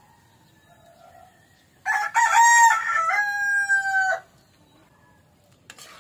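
A rooster crowing once: a single loud crow of about two seconds, choppy at the start, then a long held note that sags slightly before cutting off.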